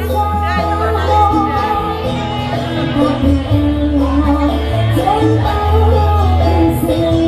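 Song playing loudly: a singing voice over instruments with a strong, steady bass line.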